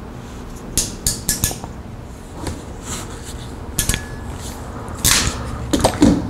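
Ratcheting crimping tool closing on a blue insulated crimp terminal: a quick run of four sharp metallic clicks about a second in, then scattered clicks and clinks, denser near the end.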